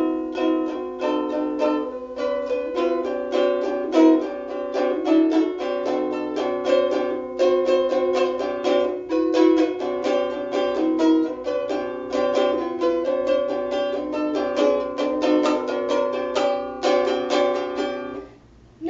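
Ukulele playing an instrumental break of quick plucked notes, stopping abruptly shortly before the end.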